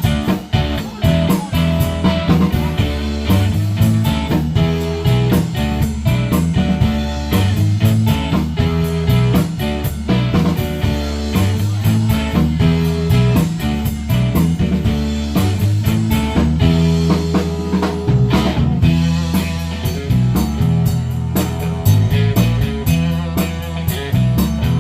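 A band playing blues-rock, with guitar over a bass line and drums keeping a steady beat.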